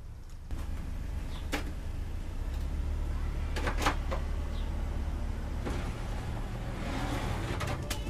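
Knocks and clatters of a corrugated RV sewer hose being pulled out of its storage on the camper van, then a scraping rustle near the end as the hose slides free, over a steady low hum.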